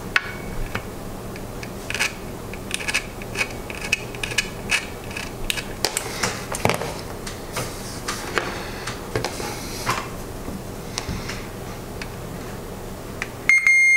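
Small clicks and knocks of tools being handled on the bench. Near the end, a digital multimeter's continuity beeper sounds one loud, steady high beep as the probes touch the freshly soldered wire joint on the circuit board, showing that the connection conducts.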